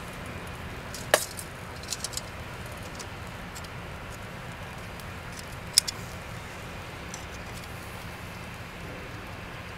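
Metal tongs clicking against a wire grill grate as chunks of meat are handled over charcoal: one sharp click about a second in, a few light taps around two seconds, and another sharp click near six seconds. A faint, steady hiss runs underneath.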